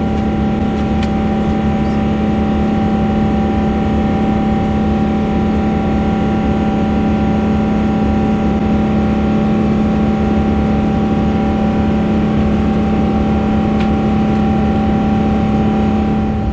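Steady drone inside an airliner cabin in flight: an unchanging engine hum with a strong low tone and several higher tones over a low rumble.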